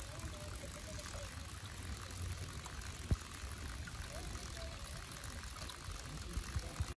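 A thin stream of water trickling from a metal pipe spout into a stone basin, over a low rumble on the microphone. Faint distant voices come and go, and there is a sharp click about three seconds in.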